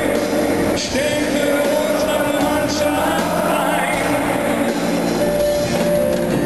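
Music: a song with some singing over a steady backing.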